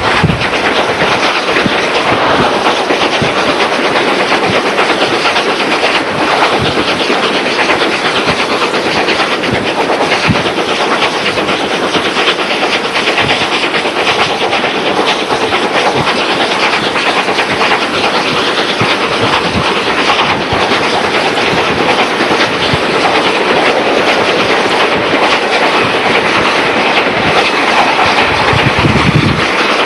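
South Australian Railways 520-class streamlined 4-8-4 steam locomotive running at speed with its carriages, heard from a vehicle pacing it alongside: a loud, unbroken rush of running noise.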